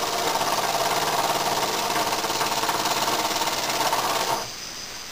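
Small home-made opposed-twin oscillating (wobbler) engine with single-acting cylinders and a lead flywheel, running on compressed air at about 5 psi with a rapid, even beat. It stops about four seconds in.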